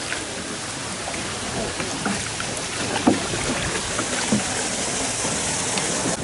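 Hand-rowed wooden sampans moving along a narrow canal: oars dipping and splashing in the water, with small clicks, a sharp knock about three seconds in, and a high hiss for the last two seconds.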